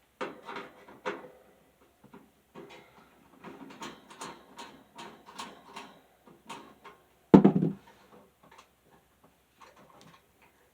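Small clicks and knocks of a box fan's plastic housing and guard being handled while the screwed-in hooks holding the guard are loosened, with one loud knock about seven seconds in.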